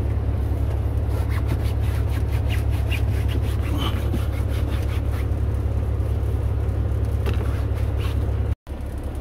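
Cloth wiping and rubbing over the plastic overhead console of a semi truck cab, heard as faint irregular scrapes and handling noise, over a steady low hum. The sound cuts out briefly near the end.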